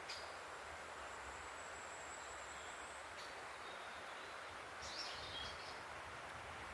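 Outdoor natural ambience: a steady background rush with scattered birdsong, a thin high note in the first few seconds and a short bird call about five seconds in.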